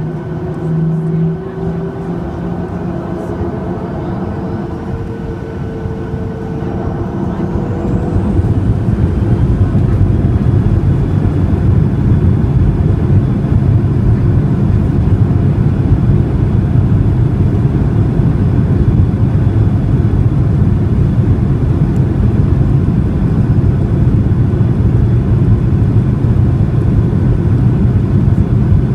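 Boeing 737-800's CFM56 jet engines spooling up to takeoff thrust, heard from inside the cabin. A whine rises over the first eight seconds or so, then the engines run loud and steady.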